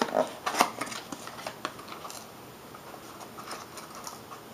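Small cardboard box being opened by hand: the lid flaps pulled free and rubbing, a quick run of sharp crackles and clicks in the first two seconds, then fainter scattered rustles.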